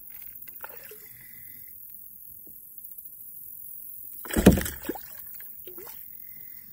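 A small hooked bass splashing at the water's surface beside a kayak: one loud splash a little past halfway, among faint clicks and handling sounds.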